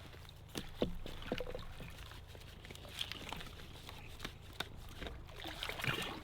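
Faint water trickling, with scattered light clicks and knocks.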